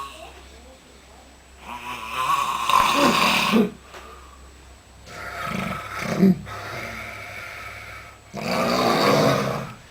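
Snoring: three long snores about three seconds apart, with quieter breathing gaps between them.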